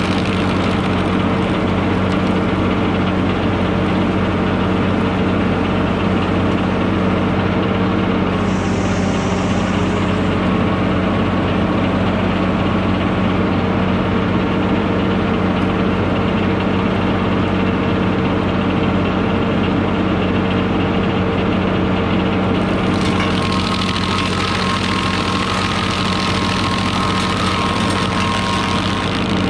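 Tractor engine running steadily under load, driving a Mech Maxx TSG61 PTO stump grinder through its driveshaft: a steady low drone with a faint whine. About twenty-three seconds in, a harsher hiss joins as the cutter wheel bites into the stump.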